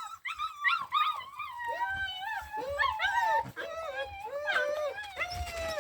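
Bernese Mountain Dog puppies whining in an unbroken string of short, high-pitched cries that rise and fall, several overlapping at times.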